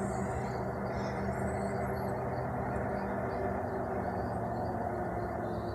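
Steady low hum made of several held tones, unchanging throughout, which the uploader takes for the sound of a UFO.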